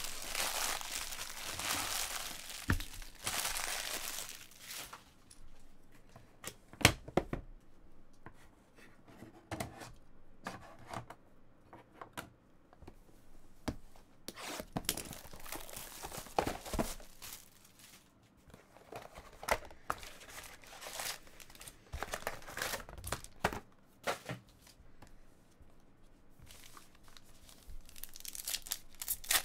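Foil trading-card pack wrappers crinkling and being torn open by hand, in irregular bursts of rustling. There is a sharp knock about seven seconds in.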